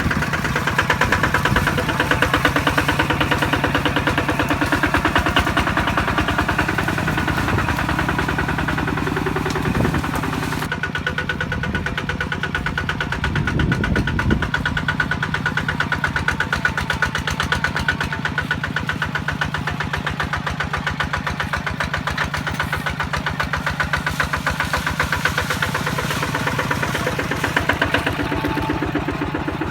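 Kubota RT155 single-cylinder diesel engine of a farm truck running steadily with a fast, even firing beat; the sound turns duller about a third of the way in.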